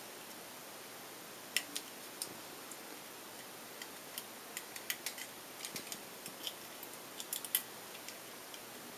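Small wire cutters snipping the orthodontic jaw-wiring wires at the teeth to free the jaws. The sound is a scattered series of light, sharp clicks, the loudest about one and a half seconds in and a quick run of them near the end.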